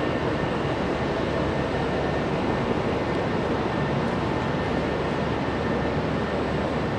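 Steady rushing whirr of running machinery, like cooling fans, holding an even level with faint steady whines and no welding sound yet.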